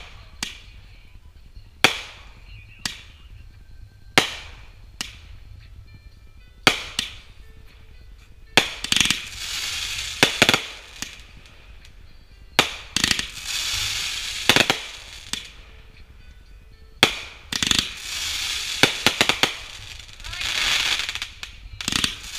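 Consumer fireworks going off in a chain: sharp bangs of launches and bursts one to two seconds apart, then from about a third of the way in, long runs of dense crackling stars broken by more bangs.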